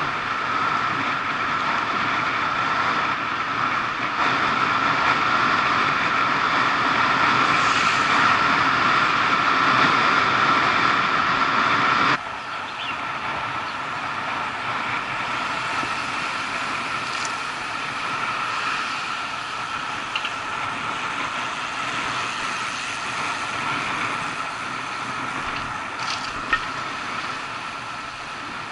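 Steady wind and road rush on a moving camera, dropping suddenly in level about twelve seconds in, with a few short clicks later and a sharp one near the end.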